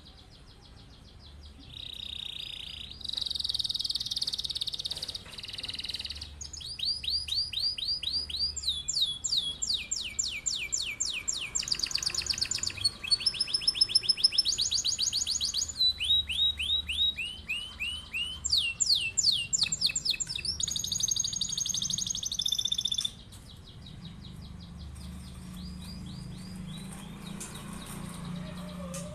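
Domestic canary singing a long rolling song: fast trills of repeated notes, changing from phrase to phrase with no break, until it stops a little over twenty seconds in. A faint low hum remains after the song stops.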